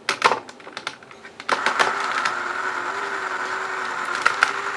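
The Armatron's small electric motor and plastic gear train starting up about a second and a half in and running with a steady whir. It is preceded by a few sharp clicks of plastic parts being handled.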